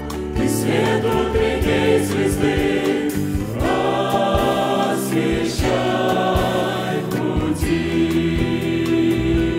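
Mixed church choir singing a Russian worship song in harmony, into microphones.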